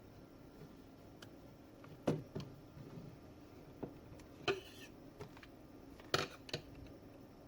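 Small hard tools and parts being handled on a repair bench: a handful of light taps and clicks, one with a brief scrape about halfway through.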